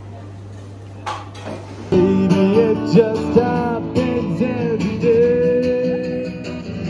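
A low steady hum, then about two seconds in a man starts singing to an acoustic guitar played through a small amplifier. Near the end he holds one long note.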